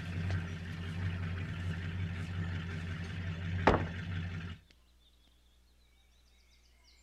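Steady low electrical hum with a light hiss, broken by a single sharp knock about three and a half seconds in. The sound then cuts off abruptly to near silence.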